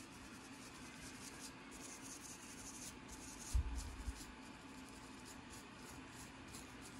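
Faint dry scratching of a comb on the scalp through thick hair, in short repeated strokes that loosen dandruff flakes. A single low thump comes about halfway through.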